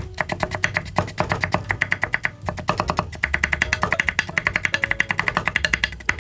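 Chef's knife rapidly chopping carrot into short julienne strips on a wooden cutting board. It makes a fast, even run of knocks, about nine a second, with a few brief pauses.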